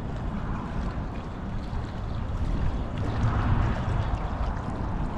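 Wind buffeting the microphone as a low, uneven rumble that swells about three seconds in, over the wash of small waves on the shoreline.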